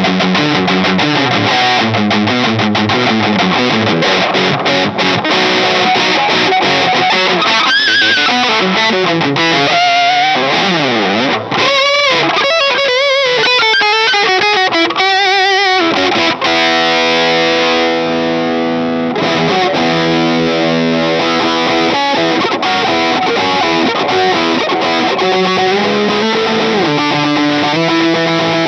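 Electric guitar played through a Boss Turbo Distortion pedal, a distorted solo with string bends and vibrato near the middle, then notes held and left to ring.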